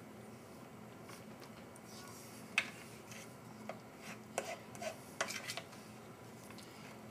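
A plastic spork scraping and clicking against a stainless steel meal tray. A handful of short scrapes fall in the middle seconds, and the sharpest click comes about two and a half seconds in.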